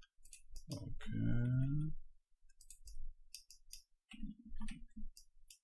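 Irregular clicks of a computer mouse and keyboard. A short hummed voice sound comes about a second in, and a faint low murmur near the end.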